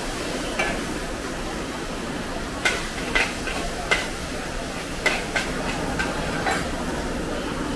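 Fried kway teow being stir-fried in a wok over a gas flame: a steady sizzle and hiss, with a metal ladle clanking and scraping against the wok about seven times.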